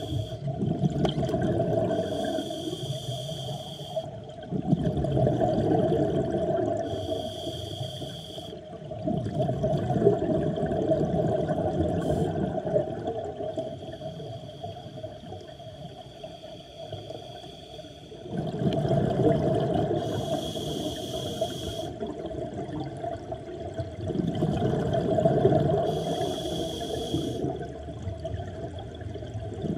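Scuba regulator breathing underwater: rumbling bursts of exhaled bubbles that swell and fade in a slow rhythm, several breaths in all, with a hiss between them and one quieter stretch about halfway through.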